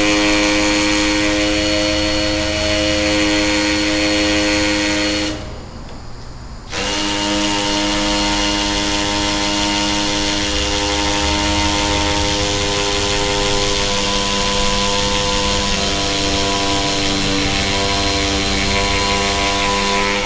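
Power drill with a masonry bit boring holes into a brick wall for Tapcon masonry screws. The motor runs with a steady whine and a coarse grinding rumble, stops once for about a second and a half about a quarter of the way in, then starts again.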